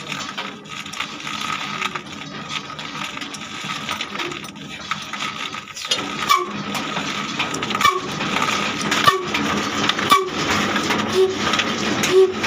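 Old Ruston Hornsby diesel engine being hand-cranked, then catching about six seconds in and firing in slow, evenly spaced beats, roughly one a second: the engine has started.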